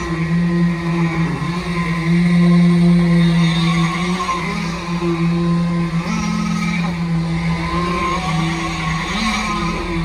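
Electric internal concrete vibrators (poker vibrators) running on their flexible shafts in fresh concrete: a loud, steady motor hum whose pitch shifts slightly up and down a few times.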